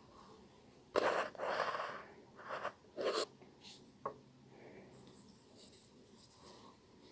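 Chiffon fabric and thread rustling close to the microphone as hands work a needle-lace edging: four short rustles from about one to three and a half seconds in, then a single small click.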